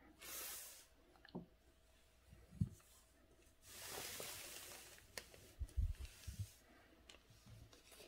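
Ink calligraphy brush finishing a stroke on paper with a brief soft swish, then a longer rustle as the sheet is slid along the desk, followed by a few soft thumps.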